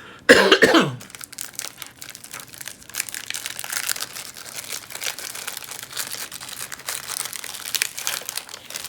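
A short cough about half a second in, the loudest sound, then the crinkly rustling of a snack wrapper of coconut wafers being handled and opened.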